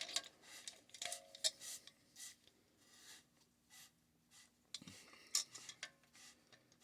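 Faint, irregular metallic clicks and clinks of plumbing tools and fittings being handled, with one duller knock about five seconds in.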